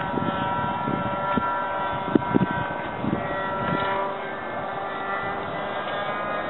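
Distant RC model airplane engine droning at a steady pitch as the Pica Duellist twin flies, the flight on which one of its two engines quits. A couple of bumps on the microphone about two seconds in.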